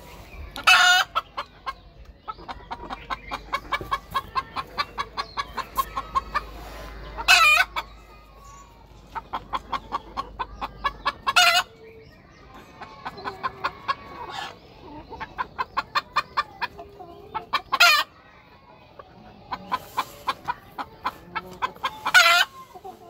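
Chicken clucking in rapid runs, each run building to a loud, higher squawk, about five times over.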